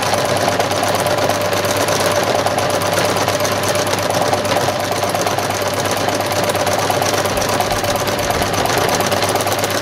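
Domestic sewing machine free-motion stitching at a steady speed, the needle punching rapidly and evenly through glitter film on stiff pelmet Vilene backing.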